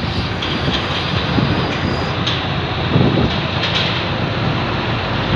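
Steady loud rumble and rushing noise aboard a ferry, the ship's engines droning under it, with a few short clicks and a low thump about three seconds in.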